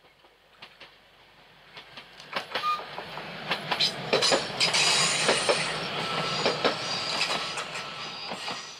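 ZSSK class 861 diesel multiple unit (Stadler GTW) passing close by: its wheels click over the rail joints in a quick run of knocks over the steady sound of the diesel running. It grows louder from about two seconds in and fades near the end.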